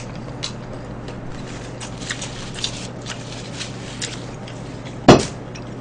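People chewing food, with small wet mouth smacks and clicks, over a steady low hum. A single sharp knock about five seconds in is the loudest sound.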